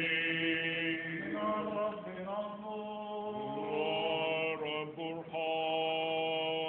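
Orthodox liturgical chant sung by male voices: long held notes, one voice keeping a low steady note beneath a slowly moving melody, with short breaths between phrases near the end.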